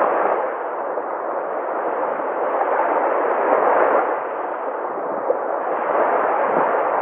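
Sea waves: a steady rush of surf that swells and eases, loudest about halfway through.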